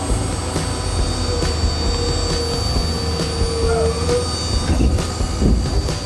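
Komatsu hydraulic excavator working while digging, its diesel engine running with a low rumble under a high steady hydraulic whine. A second whining tone rises for a few seconds in the middle as the boom and bucket move, with occasional metallic clanks.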